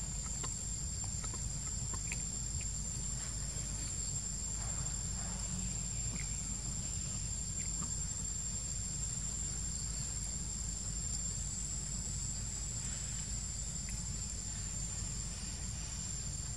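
Insects keeping up a steady, high-pitched drone over a low rumble, with a few faint ticks.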